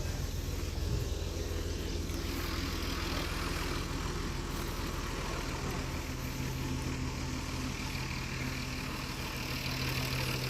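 An engine running steadily at idle, a low even hum that shifts its pitch slightly about halfway through.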